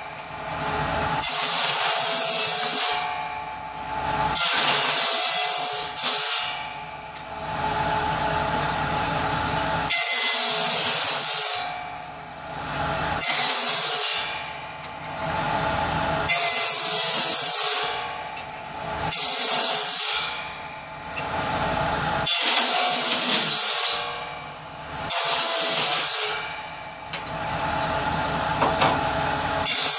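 Power saw cutting wood for kindling in a run of short cuts: about eight cuts, each a louder, harsher stretch of a second or two, roughly every three seconds, with the saw running between them.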